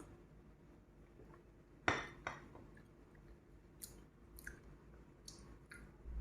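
A few small clicks and clinks: two sharper ones about two seconds in, then four lighter ticks.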